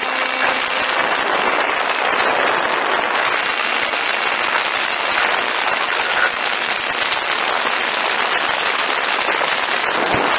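Steady, even rushing hiss of wind on the microphone of a camera carried on a flying model plane.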